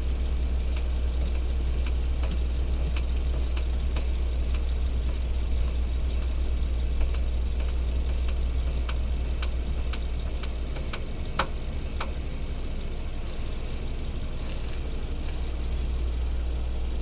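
Hyundai Solaris steering rack knocking: irregular sharp knocks over a steady low engine drone, the two loudest a little past the middle. The knock is put down to a worn steering rack bushing as the probable cause.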